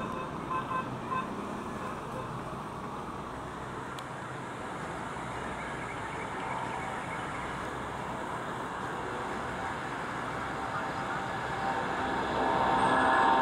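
Jet engine noise from departing airliners: a Boeing 777-300ER climbing away, then an Airbus A330-300 with Rolls-Royce Trent 700 engines at take-off thrust on its take-off roll, growing louder near the end as it rotates. Three short high beeps about a second in.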